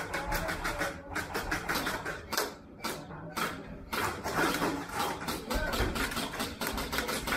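Airsoft guns firing in short bursts and single shots: a series of sharp, rapid clicks and cracks, some in fast runs of several shots.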